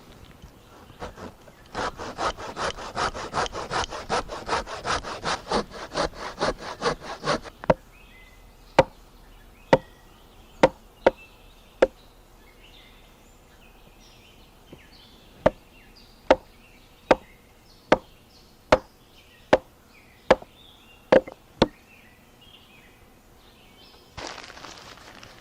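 A hand saw cutting wood with quick, even strokes for about six seconds. Then come sharp single knocks on wood, at first irregular, later about one a second.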